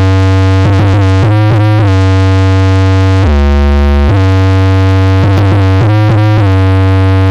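Loud synthesizer music: a held, buzzy synth note with a few quick pitch bends, stepping down to a lower note for about a second midway and then back up.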